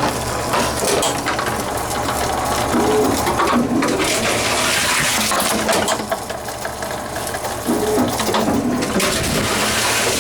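Tomra T x2 reverse vending machine running as bottles are fed in: a steady mechanical rushing noise with clicks and clatter, and a short warbling tone twice, about five seconds apart.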